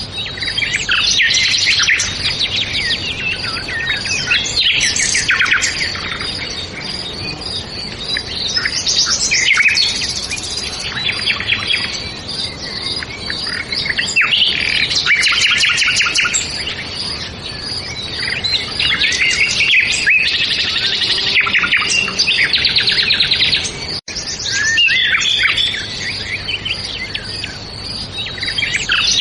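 Several songbirds singing and chirping at once, in overlapping trills and quick chirps, with a brief cut in the sound about 24 seconds in.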